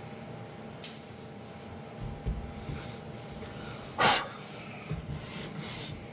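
Scattered handling noises: a light click, a few soft knocks, and one short, loud rush of noise about four seconds in, with fainter rustles after it.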